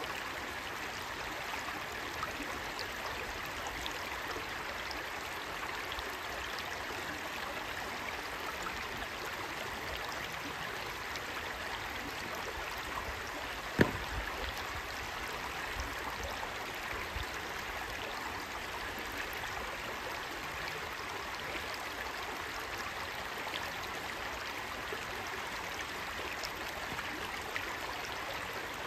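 Shallow, rocky stream babbling over stones in small riffles, a steady rushing wash. About halfway through, a single sharp knock stands out above the water.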